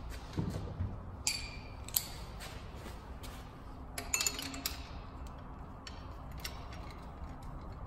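Metal clinks and clanks of a hand tool and bolts as a power steering pump is fitted to a Toyota 2JZ-GTE engine: a dull knock about half a second in, sharp clinks at about 1 and 2 seconds, a cluster about 4 seconds in, then lighter ticks.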